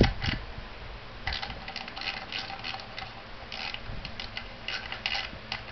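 Ratchet wrench clicking in short, uneven runs as the 10mm bolt holding the tacho drive is tightened into the Yamaha XS650 engine's alloy side cover.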